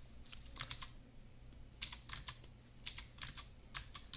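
Quiet computer keyboard keystrokes: about a dozen separate clicks, some in quick pairs, over a faint steady low hum.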